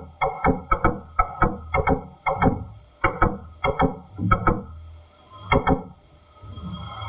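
Orion capsule's attitude-control thrusters firing in quick succession, heard from inside the spacecraft as sharp ringing knocks, about three a second, over a low rumble, easing off near the end. The firings keep the capsule correctly oriented during atmospheric reentry.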